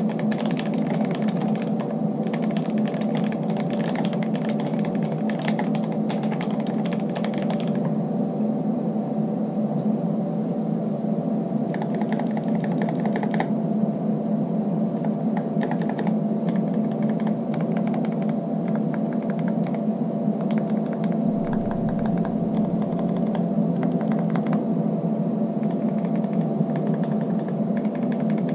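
Typing on an Archon FX mechanical keyboard with a full aluminium case and fully lubed Kailh Box Black linear switches, set on a doubled mouse mat. Fast, dense keystrokes for the first several seconds, then sparser bursts of typing, over a steady low hum.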